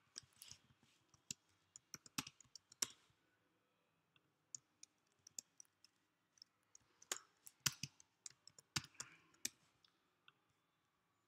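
Faint, irregular key clicks of typing on a computer keyboard, in short runs with pauses between.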